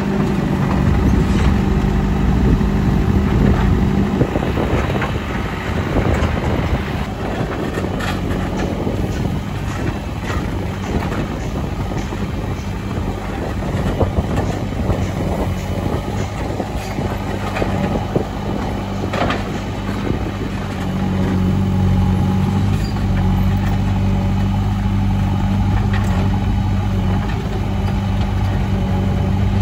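JCB 3CX backhoe loader's diesel engine running steadily under work, its note louder for the first few seconds and again from about two-thirds of the way through, with scattered sharp clanks and knocks over it.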